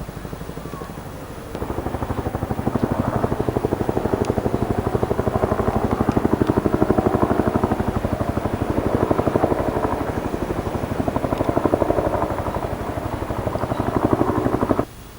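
Heavy diesel engine of earthmoving machinery running close by, with a fast, even pulsing throb. It gets louder about a second and a half in and cuts off suddenly near the end.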